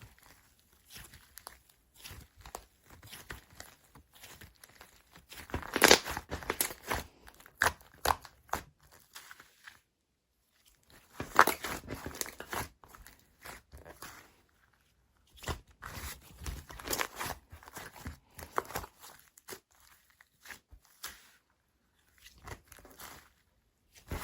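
Slime being squished and stretched by hand, giving crackling, crinkling clicks that come in bursts with short pauses between them.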